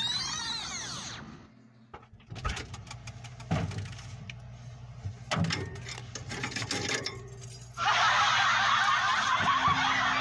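Clicks and knocks of a refrigerator being rummaged, bottles and containers knocking against each other and the shelves, over a low steady hum. It opens on a sweeping sound that fades out about a second in, and about eight seconds in a loud, dense, steady rush of noise takes over.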